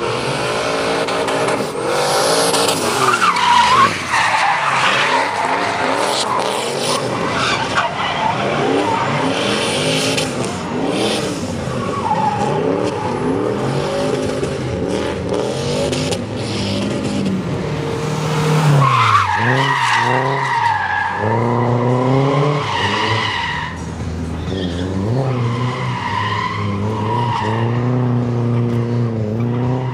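Drift cars sliding round the track, two in tandem: engines revving up and down hard with continuous tire squeal. About 4 seconds in and again near 20 seconds, the engine pitch dives and climbs back as the cars lift and get back on the throttle through a pass.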